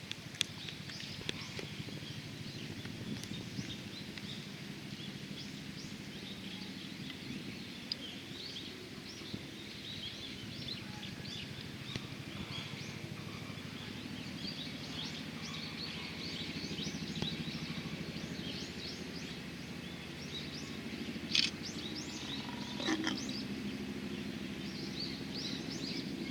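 Ambience of many small birds chirping over a steady low hum, with two brief knocks near the end.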